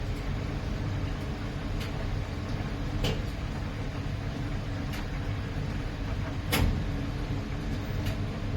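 Miele PW 6080 commercial washing machine running: a steady low rumble from the turning drum, with a few short knocks, the loudest about two-thirds of the way through.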